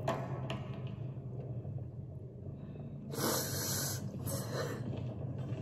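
A person breathing out sharply, a hard breath of about a second, roughly three seconds in, over a steady low rumble.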